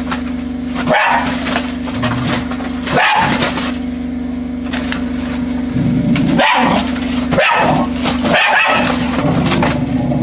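A dog barking excitedly from the bottom of a deep well, about five barks a second or two apart, over a steady low hum.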